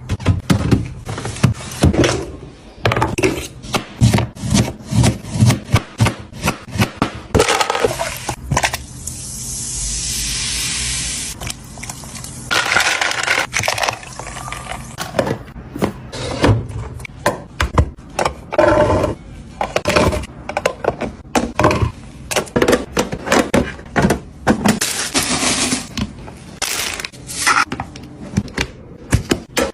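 Kitchen items and food containers being handled: a dense run of clicks, taps, knocks and scrapes. A steady hiss lasts about three seconds, roughly a third of the way in.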